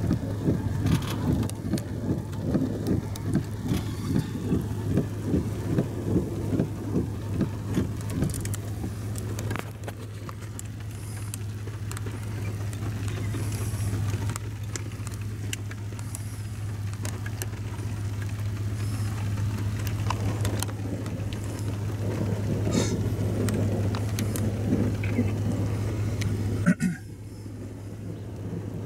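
Car interior noise: a steady low hum with road and wind noise. Uneven buffeting for the first several seconds gives way to smoother noise, and a sharp click comes near the end.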